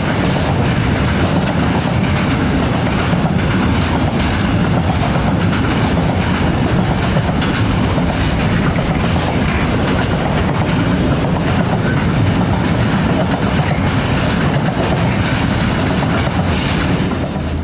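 Freight train of container wagons rolling past close by: a steady rumble of steel wheels on the rails, with many sharp clicks from the wheels over the track.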